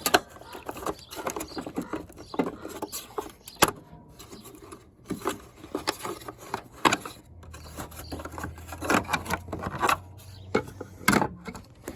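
Irregular clicks, taps and rustling from handling close to the microphone, with a low hum for about three seconds in the second half.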